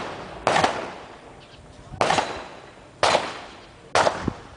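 Four gunshots, each a sharp crack with a fading echo: one about half a second in, then three more roughly a second apart.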